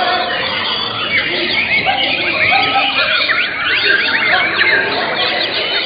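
White-rumped shamas (murai batu) singing over one another in a contest, a dense run of quick rising and falling whistled notes and chatter that gets busier in the second half, with people's voices underneath.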